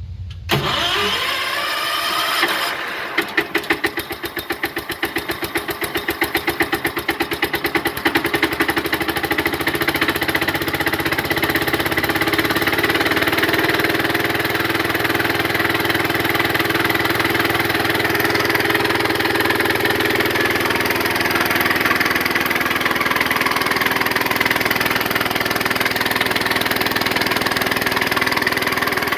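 A motor starts about half a second in and spins up, runs unevenly for several seconds, then settles into a steady run.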